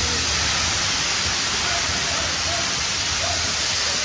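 Steady city street noise: a constant even hiss over a low rumble, with faint snatches of distant voices.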